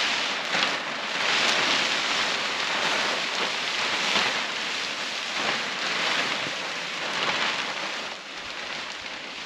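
Large black polyethylene sheet rustling and crinkling as it is pulled and unfolded over the dirt, swelling and fading in irregular surges.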